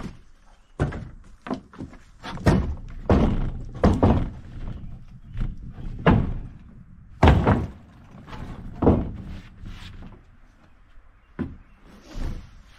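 Heavy, freshly ripped timber pieces knocking and thudding on a wooden deck rail as they are handled and set down: a string of irregular dull knocks, the loudest about 7 seconds in.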